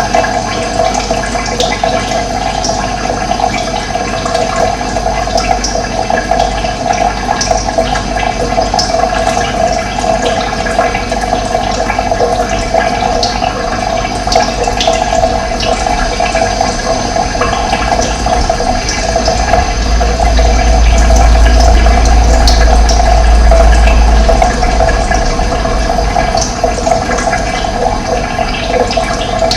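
Running water flowing and rushing steadily, with occasional faint bird chirps. A deep low rumble swells about two-thirds of the way in and then fades.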